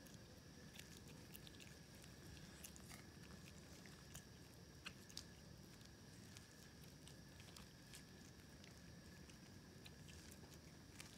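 Black feral kitten chewing food, heard as faint, irregular clicks and smacks.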